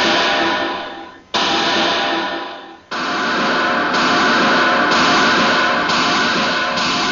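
Soundtrack music: loud chords struck and left to ring and fade, twice, then held chords changing about once a second.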